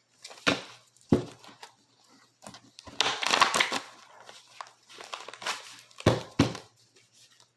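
Deck of tarot cards being shuffled and handled: a few sharp snaps of cards and a short burst of shuffling about three seconds in.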